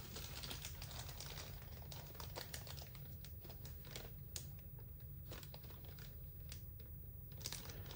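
Faint crinkling and rustling of plastic packaging being handled and pulled open, with scattered small crackles.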